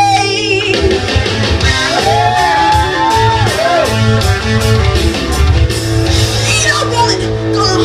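Rock music with guitar and a steady beat, and a singing voice that holds a long, bending note in the middle.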